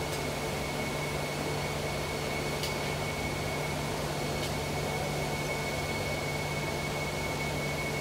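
Construction machinery at a pile-driving site running steadily: a constant low hum with a thin high whine over an even hiss, with no hammer blows. Two faint ticks come a few seconds in.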